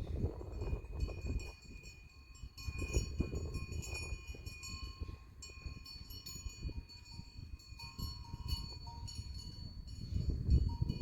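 Livestock bells on a grazing water buffalo herd ringing and clinking on and off, over a low uneven rumble.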